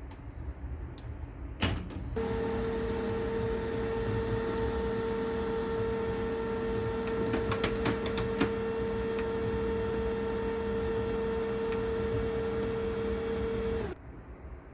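HP Color LaserJet Pro 3203dw laser printer running its internal motors with a steady hum, starting abruptly about two seconds in and cutting off near the end, with a few clicks partway through.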